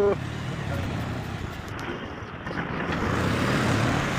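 Motorcycle riding slowly: its engine running under a steady noise of wind and road, which swells a little in the second half.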